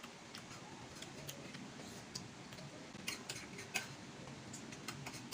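Faint, scattered eating sounds while eating by hand: a few soft clicks and smacks from chewing, spread irregularly over a quiet background.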